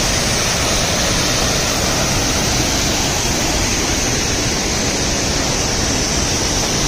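Waterfall plunging onto rock, a steady, loud rush of falling water.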